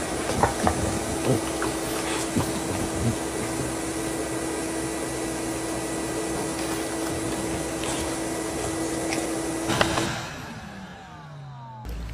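An electric appliance motor, of the vacuum-cleaner kind, runs steadily with a rushing air noise and a steady hum. About ten seconds in it switches off and winds down, its pitch falling away.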